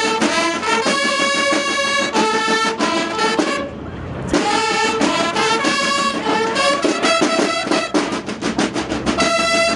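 Drum-and-bugle corps playing: bugles sounding sustained notes together over snare drum beats, with a short break about three and a half seconds in.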